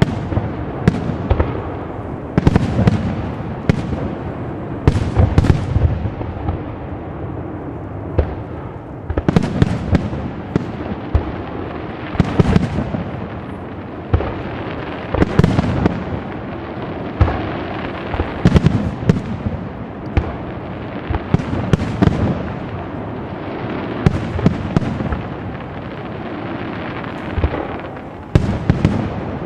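Aerial firework shells bursting in a continuous barrage: sharp bangs every half second to a second over a steady low rumble.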